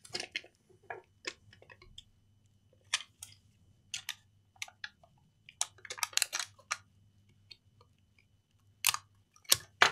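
Scattered small clicks and short scrapes of plastic as a Lenovo laptop battery pack's casing is handled and worked at with a scalpel blade, over a faint low hum.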